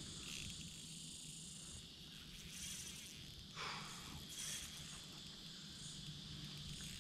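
Faint, steady high-pitched insect chorus, with one short, louder noise about halfway through.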